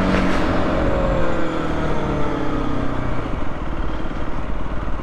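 Aprilia RS 125's single-cylinder four-stroke engine under way, its pitch falling steadily over the first few seconds as the bike slows, with wind noise on the helmet-mounted microphone underneath.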